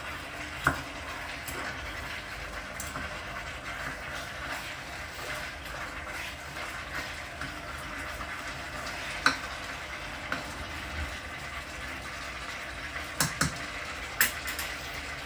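Chicken, onions and spices cooking in oil in a pot, a steady sizzle, with a handful of sharp clicks here and there.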